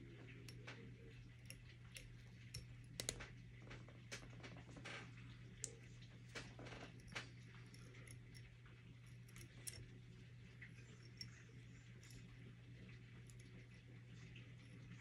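Faint, scattered light clicks and ticks of a bodkin and fingers picking trapped fibers out of a fly held in the vise, over a steady low hum.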